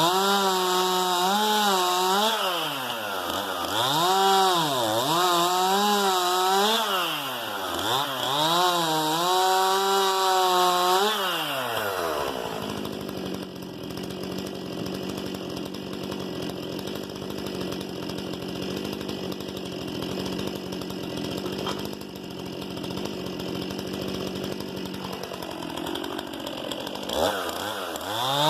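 Stihl MS 261 C-M two-stroke chainsaw with a 32 cm bar cutting firewood. For about eleven seconds it runs at high revs, its pitch sagging and recovering again and again under load, then it drops to a steady idle, and it revs up again near the end.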